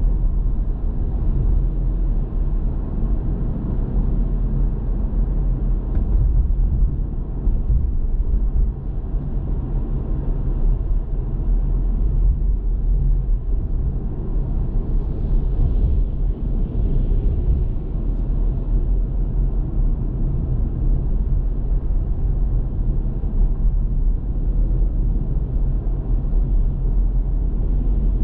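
A car being driven: a steady low rumble of engine and road noise with no distinct events.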